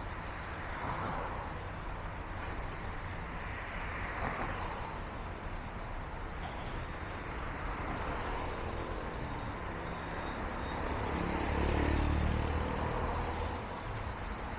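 Steady road traffic, with a motor vehicle passing close and loudest about eleven to thirteen seconds in.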